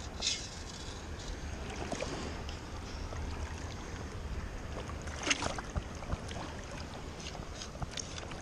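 Water splashing and draining from a perforated stainless-steel sand scoop as it is lifted out of the shallow water, then the pebbles in its basket clicking and rattling as fingers sift through them. There is a sharp splash just after the start and another loud burst about five seconds in, followed by scattered small clicks.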